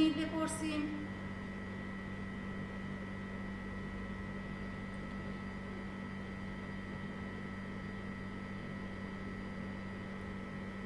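Steady electrical hum with hiss: a low buzz and a thin higher tone that hold level without change. A faint voice trails off in the first second.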